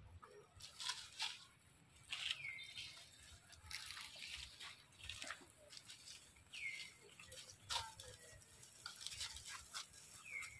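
Monkeys shifting about in dry leaf litter: scattered rustling and crunching. A short high call that falls in pitch sounds three times, about four seconds apart.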